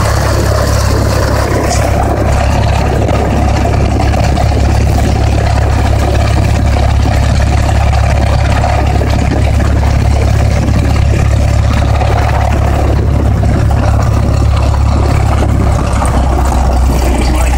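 Cessna 172's piston engine and propeller droning steadily, heard inside the cabin as the plane rolls on the ground after landing; the engine note drops slightly near the end.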